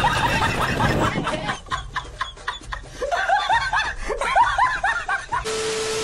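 Snickering laughter: a string of short, rising squeaky notes, after a few sharp clicks. Near the end a steady tone over a static hiss comes in and cuts off suddenly.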